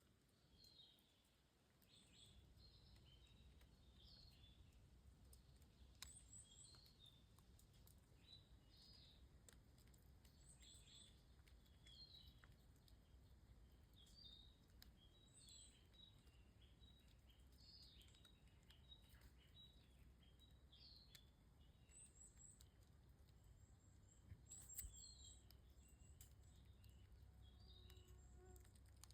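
Faint small birds chirping in short repeated calls, over a steady low background rumble.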